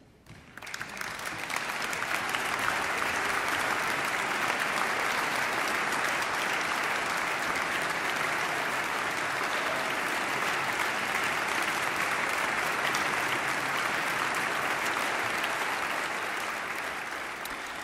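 Audience applauding: the clapping breaks out of silence about half a second in, swells over the next two seconds, then holds steady and eases slightly near the end.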